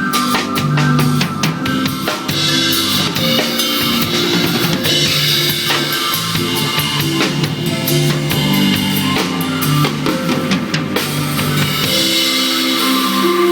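Drum kit played along with a backing music track: busy bass drum, snare and rim hits over the pitched accompaniment.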